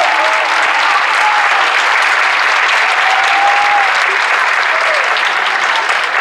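Theatre audience applauding steadily, with a few voices cheering over the clapping.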